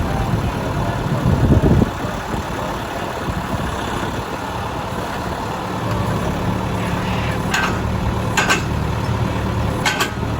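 An engine running steadily at low revs, with a louder rumble near the start and a few short clicks in the second half.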